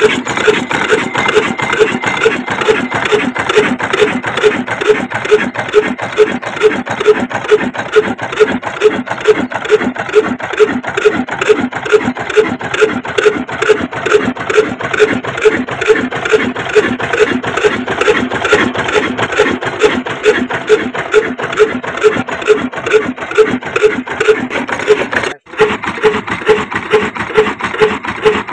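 Old black stationary diesel engine with heavy flywheels running at slow speed, giving a steady, even beat of about two knocks a second.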